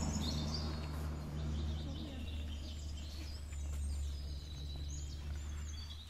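Small birds chirping outdoors over a steady low hum.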